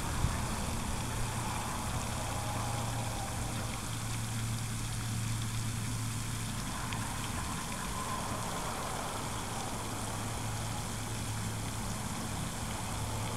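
Steady outdoor background noise: a low hum under an even hiss, with no distinct events.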